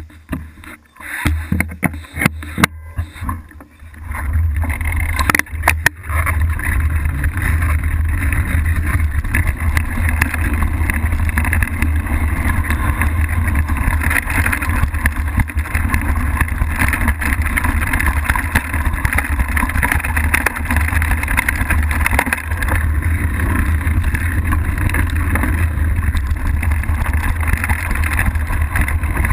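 Mountain bike riding downhill on a dirt and rock trail: knobby tyres rolling over dirt and stones and the bike rattling, under a steady low rumble of wind buffeting the bike-mounted camera. A few scattered knocks and clatters in the first four seconds, then the noise runs steady.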